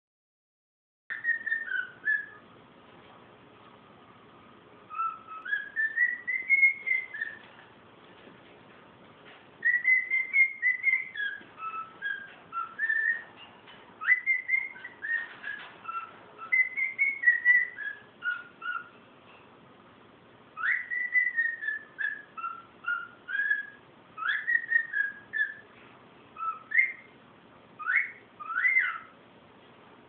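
Pet cockatiel singing: phrases of clear whistled notes that glide up and down, separated by short pauses, ending in a few quick upward-sweeping whistles.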